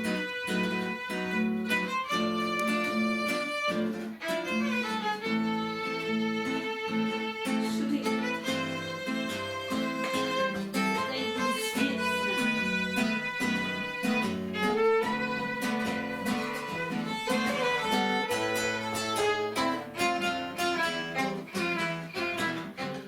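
Instrumental break in a sung tango: a violin plays a sustained melody over plucked and strummed acoustic guitar accompaniment.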